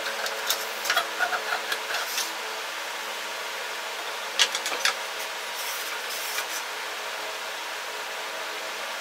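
An abrasive belt being handled and slipped over the wheels of a plywood-frame 2x72 belt grinder: scattered clicks and rubs in the first couple of seconds, again about four and a half seconds in and faintly around six seconds, over a steady background hum.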